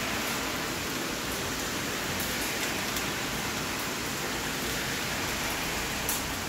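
Steady rain falling: an even hiss with scattered sharp ticks of single drops, one louder tick near the end.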